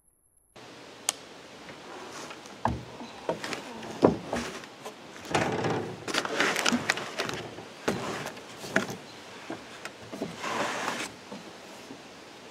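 After a brief silence, knocks, bumps and rustling as a person shifts his weight and sits up on a wooden truck flatbed, close to the microphone.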